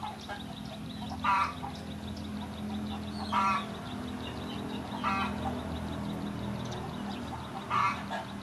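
Domestic fowl calling: four short calls, about two seconds apart, over a low steady hum.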